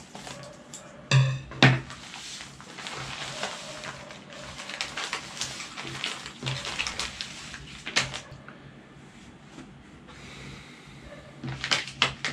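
Plastic packaging rustling and crinkling as a courier mailer is opened and lure packets are pulled out and laid on a table, with two sharp knocks about a second in. Background music plays underneath.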